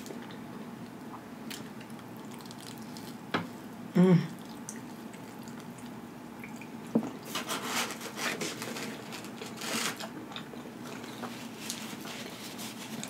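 Close-miked eating: a person bites into a slice of pepperoni pizza and chews, with wet mouth clicks and smacks clustered from about seven to ten seconds in. A short hummed vocal sound about four seconds in is the loudest moment.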